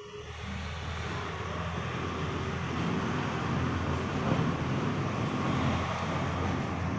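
Motor vehicle noise: a low steady hum under a broad rushing sound, growing louder over the first two or three seconds and then holding steady.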